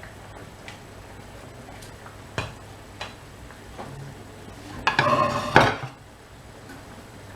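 Metal cookware clattering: a couple of light knocks, then a short burst of clanking pot and utensil about five seconds in.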